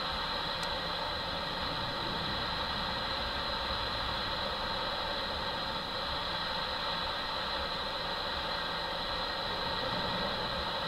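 Boeing 737's CFM56 turbofan engines running with a steady whine as the airliner rolls along the runway, with gusty wind rumbling on the microphone.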